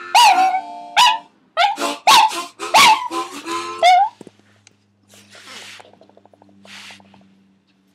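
Small dog howling along to music, a run of about seven short rising-and-falling yowls over held musical notes. The howling stops about four seconds in, leaving faint rustling.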